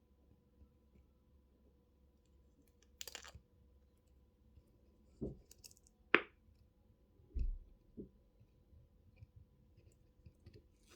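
A few scattered light clicks and taps, about five, as a phone and a glue tube are handled on a workbench while glue is put on the phone's frame; the sharpest comes a little after halfway.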